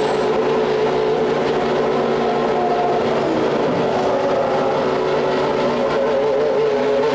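Formula One car engines running with a loud, steady high-pitched note that wavers slightly in pitch.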